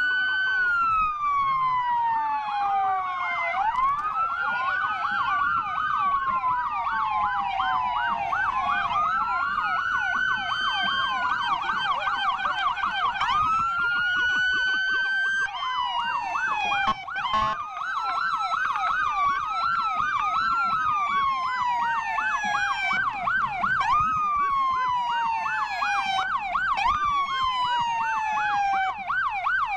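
Electronic sirens of several police SUVs passing in a line, sounding over one another. Slow rising-and-falling wails mix with fast yelps.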